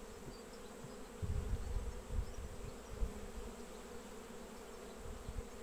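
Steady buzzing of a mass of honey bees over an open hive. A few low bumps come between about one and three seconds in, as a brood frame is worked loose with a hive tool and lifted out.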